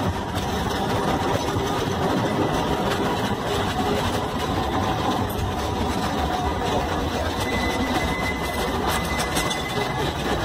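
Street trams running past on their rails, a steady rumble of motors and wheels mixed with traffic noise.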